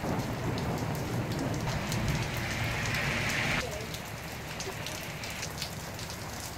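Rain falling steadily during a thunderstorm, with individual drops ticking close to the microphone. A louder rushing noise with a low rumble fills the first three and a half seconds, then cuts off suddenly.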